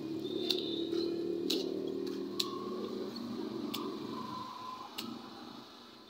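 Small sharp clicks and taps of metal and plastic, about five, roughly one a second, as a disposable lighter is refilled from a butane gas can, over a low hum that fades away.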